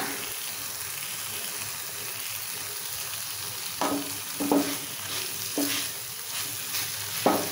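Thick cauliflower masala sizzling steadily in a pan on the stove. A wooden spatula stirs it, scraping and knocking against the pan a few times in the second half.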